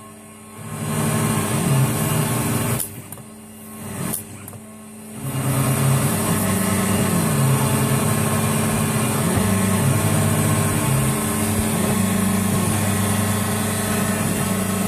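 Newing-Hall rotary engraving machine cutting a brass plate: the spindle and cutter run with a steady machine noise, and low tones under it shift up and down in pitch. The noise drops away briefly twice in the first five seconds, then runs on steadily.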